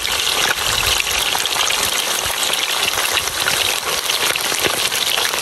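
Chicken wings deep-frying in a large wok of hot oil: a steady, dense sizzle of bubbling oil with fine crackling throughout.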